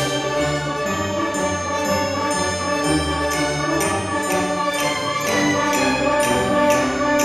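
A youth symphony orchestra playing classical music, with strings and winds holding sustained chords. From about three seconds in, a steady pulse of accented notes comes in, about two a second.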